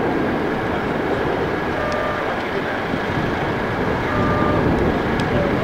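Steady, loud engine noise of a Boeing 787 Dreamliner's turbofans on approach, with a faint high whine held above it.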